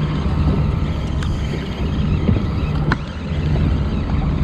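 Yamaha 30 outboard motor running with a steady low hum, with wind rough on the microphone and a couple of faint clicks.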